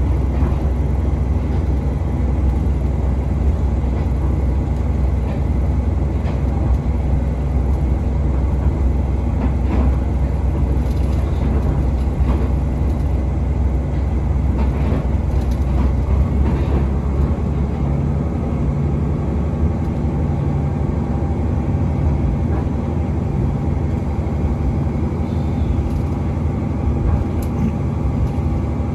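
Steady low rumble of a moving train heard from inside a carriage of the Tsugaru Railway stove train, the wheels running on the rails, with a few faint clicks.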